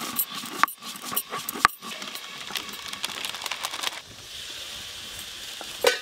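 Roasted whole spices crushed and ground on a stone grinding slab (shil) with a stone roller (nora): a run of sharp clicks and gritty scraping as the seeds crack under the stone. About four seconds in this gives way to a steady hiss.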